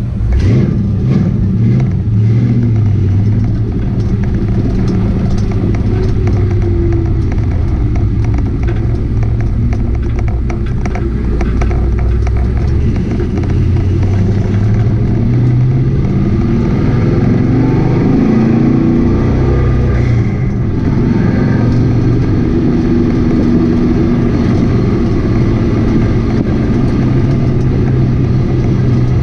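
1965 Chevrolet Chevelle's engine heard from inside the cabin, running loud as the car drives, its pitch rising and falling with the revs.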